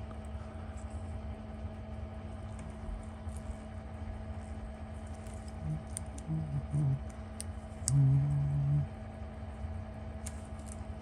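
A person humming a few short low notes, then one held note about eight seconds in, over a steady electrical hum. A few faint small clicks come through as well.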